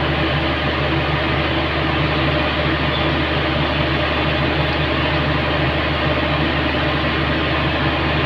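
Industrial pump running: a steady, loud machine hum with a few constant low tones that does not change.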